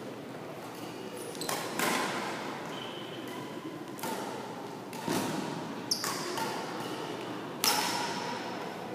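Badminton rackets striking a shuttlecock in a rally: about six sharp hits, one to two seconds apart, each echoing in a large sports hall.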